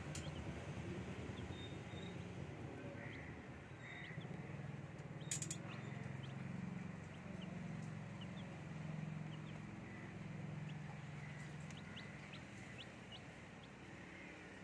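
Baby chicks peeping with short, high chirps at scattered moments over a steady low hum, with one sharp click about five seconds in.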